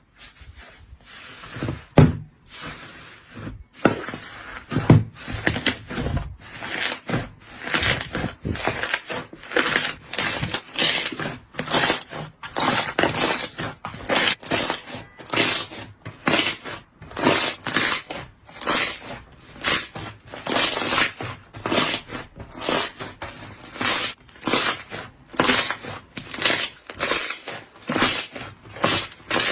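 Slime being squeezed and pressed by hand in a steady rhythm, a short crisp sound about twice a second.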